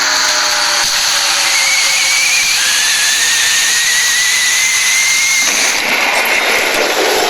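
Cartoon sound effect: a loud, steady hiss with high whistling tones, and a thin whistle slowly rising in pitch through the middle, changing texture near the end.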